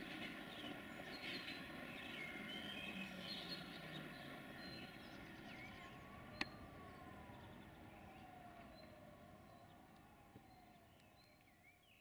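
Faint outdoor ambience of birds chirping, with a distant siren gliding up and then slowly falling and rising in the second half, and a single sharp click about six seconds in; everything fades out toward the end.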